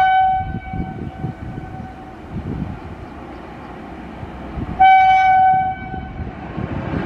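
Horn of a WAP-5 electric locomotive: the tail of one blast in the first half second, then a second blast of about a second, about five seconds in. Between the blasts, the low rumble of the train rolling along the track.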